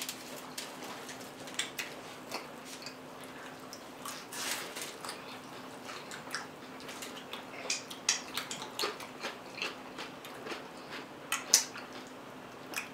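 A person biting and chewing crunchy food close to the microphone, with irregular crisp crunches scattered throughout.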